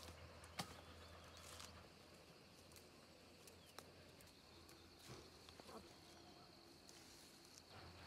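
Faint outdoor hillside ambience: a steady high insect drone with scattered light snaps and rustles of leafy branches being handled and stripped by hand.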